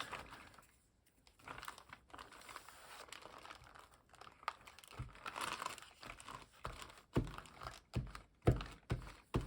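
Paper rustling and crinkling as journal pages and a paper hinge are handled and glued, followed in the second half by a series of short dull taps as the pages are pressed and patted down on the table.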